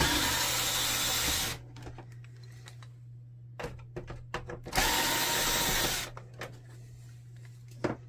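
Electric screwdriver with a Phillips bit running twice, each time for about a second and a half, backing out screws from a printer housing. Small clicks and handling knocks come between the two runs.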